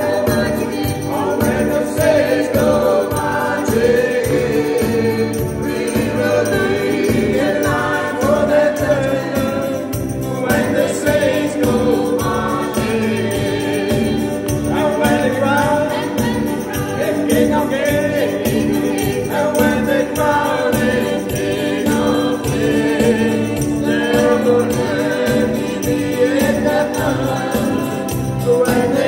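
Small mixed amateur choir singing a Christian song together, accompanied by an electronic keyboard with a steady beat.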